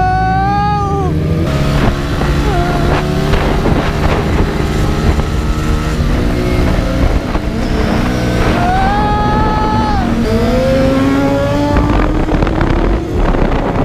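Motorcycle engines running hard as a group of bikes rides off and accelerates, their engine notes rising in pitch with each pull, with a higher held engine whine twice along the way.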